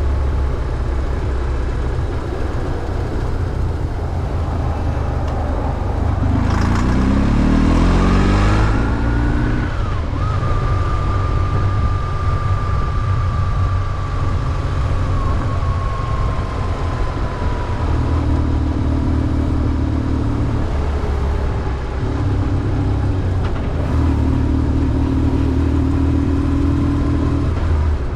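BMW R1150GS's 1130 cc air- and oil-cooled boxer twin running under way, its revs climbing from about six seconds in, then settling into steady running with further pulls on the throttle. A thin high whine, slowly falling in pitch, runs under it through the second half.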